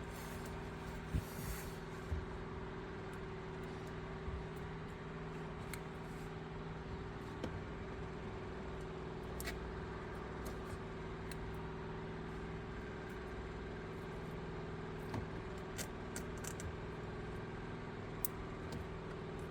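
Pickup truck engine idling steadily, a constant low hum, with scattered light clicks and taps from handling wires and connectors.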